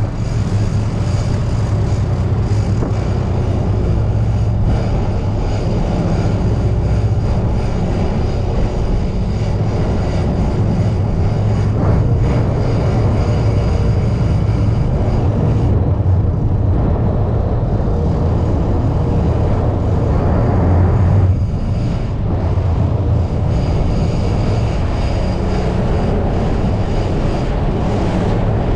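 Boat engine running steadily, a constant low hum under a rushing noise of wind and water.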